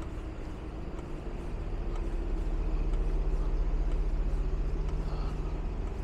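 A bus engine running close by amid street traffic, a steady low hum that grows louder about two seconds in and holds.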